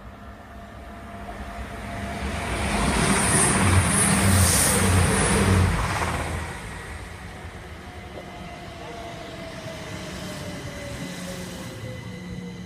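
Class 222 diesel multiple unit passing through the station at speed: a rush of rail noise that builds to a loud peak a few seconds in, with a quick run of wheel thumps over the rail joints, then fades. After that the Class 387 electric unit runs slowly into the platform, its traction motor whine falling steadily in pitch as it slows.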